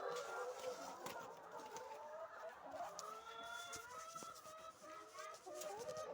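A flock of laying hens clucking and calling softly, many voices overlapping, with a few light clicks among them.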